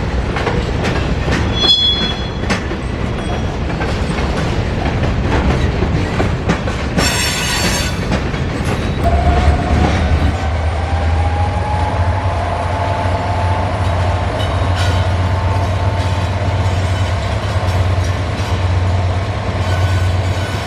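A train rolling past on the rails, the wheels clicking over the track, with a brief squeal about seven seconds in. From about nine seconds a steady low drone sets in, with a long, slightly rising wheel squeal above it.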